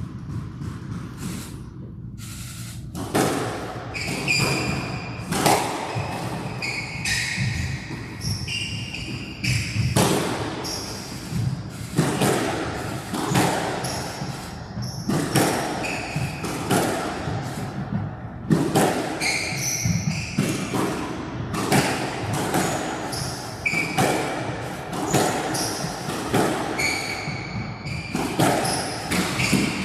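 A squash rally: the ball is struck by the rackets and hits the walls with sharp thuds about once a second, between short squeaks of court shoes. The rally starts about three seconds in.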